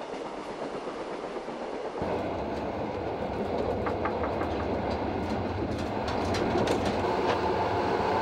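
Railway carriages of a moving passenger train rolling along the track: a steady rumble with wheel clatter. It gets louder about two seconds in and keeps building slowly.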